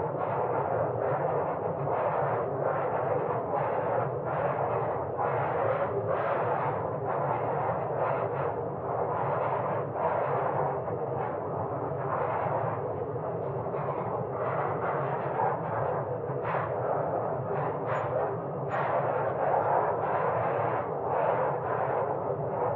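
Wood fire burning in a fireplace: a steady rush of flames with frequent crackles and pops throughout.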